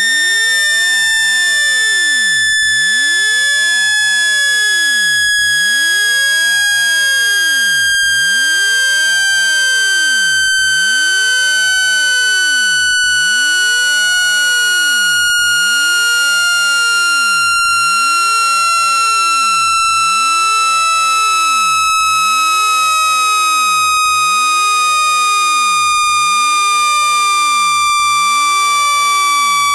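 Synthesized speaker-cleaning tone meant to shake water out of a phone speaker: one loud, unbroken electronic tone gliding slowly and steadily down in pitch.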